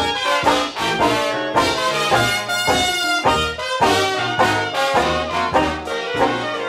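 Traditional jazz band playing without vocals: two cornets, trombone and clarinet in ensemble over tuba, piano and drums, with a steady beat.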